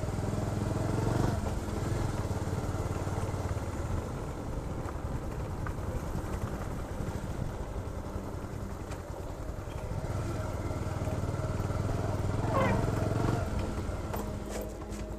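Motorcycle engine running steadily as the bike rides along a dirt forest track, getting briefly louder about twelve seconds in.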